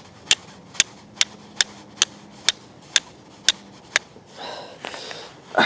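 Flint rock struck repeatedly against a high-carbon steel Mora knife blade: sharp clicks about two a second, nine strikes, stopping about four seconds in. The strikes are mostly cutting into the char cloth draped on the blade instead of catching a spark. A short rustle comes right at the end.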